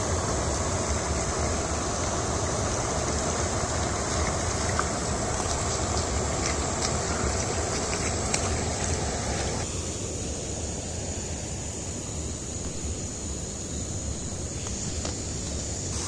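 Water rushing over a low concrete weir and down a shallow river: a steady, even rush that turns softer about ten seconds in.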